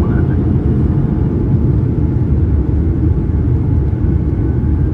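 Steady low cabin roar of a Boeing 787-8 airliner descending on approach: engine and airflow noise heard from inside the cabin, even and unchanging.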